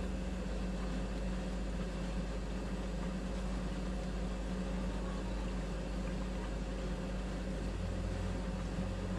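Kings 75 litre dual-zone portable fridge's compressor running steadily on its maximum setting: an even, unchanging hum.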